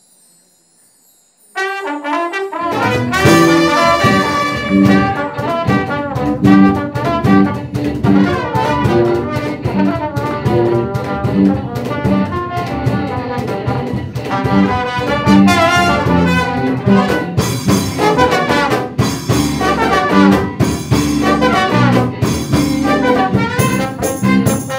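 Live band music starting abruptly about a second and a half in: trumpet and trombone playing the melody over drums, hand percussion and a bass line with a steady beat.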